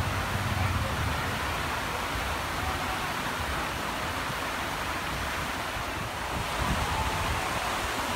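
Water curtain pouring off the edge of a canopy roof and splashing into a pool: a steady, even rush of falling water.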